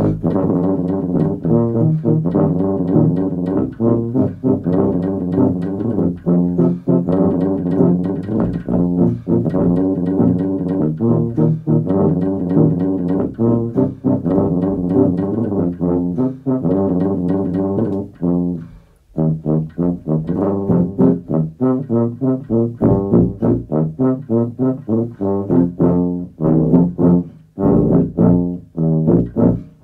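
Several multitracked tuba parts play a pop-rock arrangement together in quick rhythmic notes: a low bass line with chords and melody above it. The sound breaks off briefly about 19 seconds in, then carries on.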